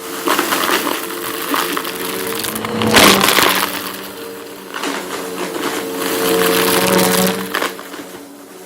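Bissell vacuum cleaner running with a steady motor hum while its brushroll crunches and crackles through dry debris. The loudest burst of crunching comes about three seconds in.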